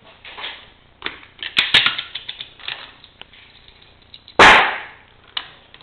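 A few light metallic clicks, then a single loud gunshot from the Browning 1919A4 machine gun about four seconds in, dying away over about half a second.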